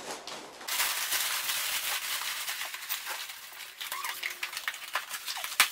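Plastic packaging wrap crinkling and rustling as a wrapped bike is handled and lifted, then scattered light clicks, with one sharp click near the end.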